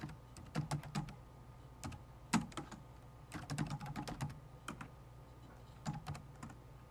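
Typing on a computer keyboard: uneven runs of quick keystroke clicks, with short pauses between the runs.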